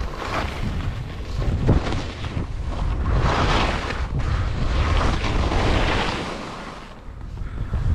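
Wind rumbling on the microphone, mixed with the hissing scrape of skis turning on chopped, tracked snow in several surges; it eases off briefly near the end.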